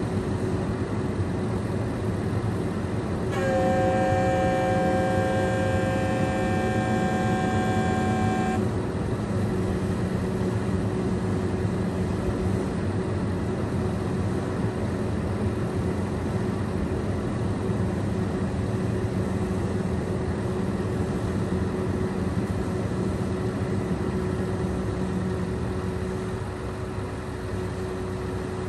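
Scania P380 vacuum excavator truck running steadily, with a steady mechanical hum. From about three seconds in, a loud horn-like sound made of several steady tones sounds for about five seconds and then stops.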